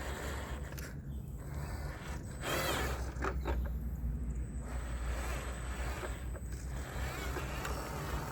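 Electric RC truck's motor and drivetrain whirring as it drives, with a louder burst of whine and gear noise about two and a half seconds in, over a steady low rumble.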